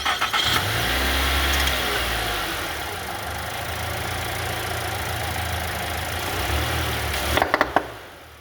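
Mitsubishi Outlander engine running with an unusual noise, which the owner traced to leaking fuel injectors on cylinders 2 and 3. A few sharp clicks sound near the end, and the running then dies down.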